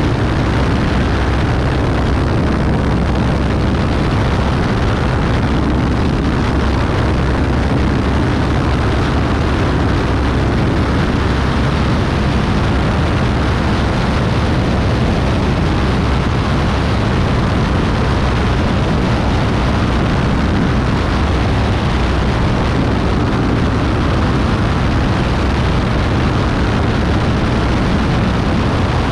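Beechcraft B35 Bonanza's flat-six piston engine and propeller running steadily in flight: a constant, loud, low-heavy drone that does not change.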